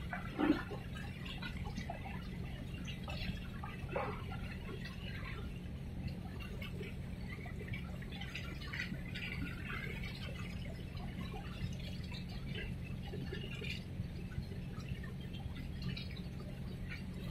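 Harbour water lapping and sloshing in small irregular splashes, over a steady low hum.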